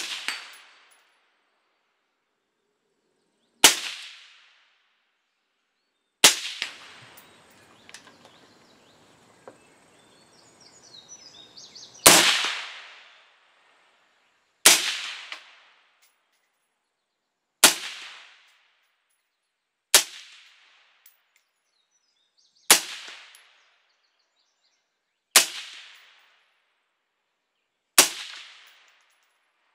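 Suppressed AR-15 in 5.56 fitted with a YHM Turbo 5.56 suppressor, firing about ten single shots, one every two and a half to three seconds, with a longer pause near the start. Each shot is a sharp report that dies away within about a second.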